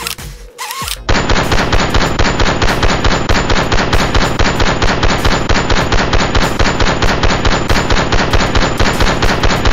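Rapid automatic fire at about five shots a second, starting suddenly about a second in and running steadily, as a Nerf blaster sprays foam darts. It is preceded by a short quieter stretch with a few beeps.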